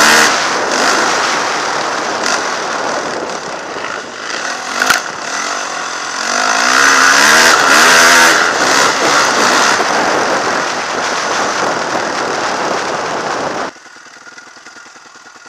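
Dirt bike engine at full throttle, revving up with rising pitch, under heavy wind rush on a helmet camera. About two seconds before the end it cuts off abruptly to the quieter steady running of dirt bikes idling.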